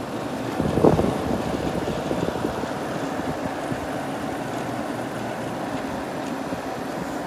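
Late-1960s Sears Coldspot 6,000 BTU window air conditioner running, its fan and compressor making a steady whooshing hum, with a brief louder swell about a second in.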